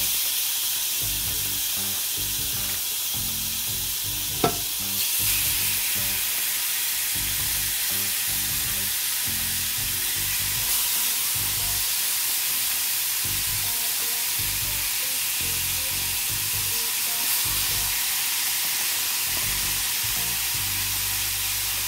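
Marinated chicken pieces sizzling steadily on a hot ridged griddle as they are laid down one after another with tongs. The sizzle grows louder about five seconds in. Just before that comes one sharp clink.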